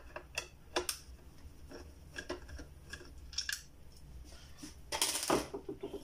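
Light clicks and metallic taps of a long screwdriver and screws against the plastic and metal parts of an opened espresso machine being taken apart, with a louder rattling clatter about five seconds in as a part is handled.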